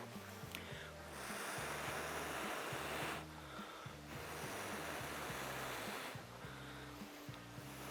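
Long, hissing blows of breath, in about three swells of roughly two seconds each, as someone blows on smouldering tinder to bring it to flame. Soft background music with a low bass line runs under it.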